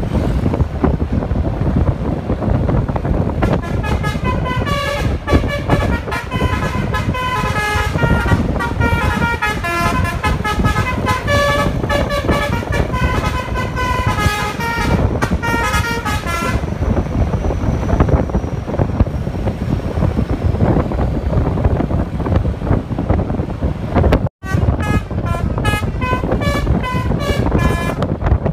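Bus telolet horn playing a tune in quick, separate notes over a steady rumble of engine and wind noise, starting about three seconds in and stopping about sixteen seconds in. After a sudden break around twenty-four seconds in, it starts another tune.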